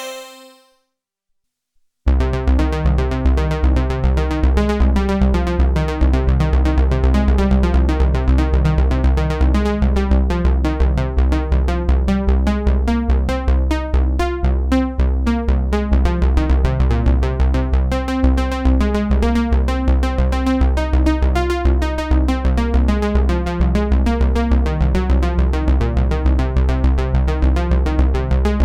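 Roland Juno-106 analog polyphonic synthesizer playing a patch: a fast, evenly repeating run of notes over a steady deep bass. It starts about two seconds in, after the previous sound fades to a short silence.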